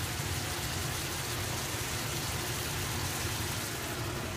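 Seasoned rib meat sizzling steadily as it fries in butter in a nonstick frying pan.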